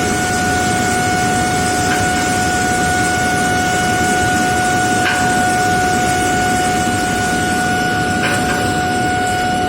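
Induction melting furnace running, a steady high-pitched whine over a loud rushing noise, with a few brief crackles.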